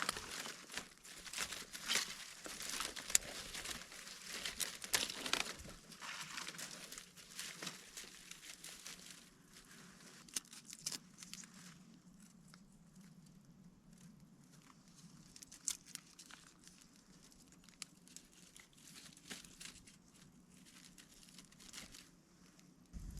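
Crinkling, rustling and crackling with many sharp clicks, dense for about the first nine seconds, then thinning to a few scattered clicks.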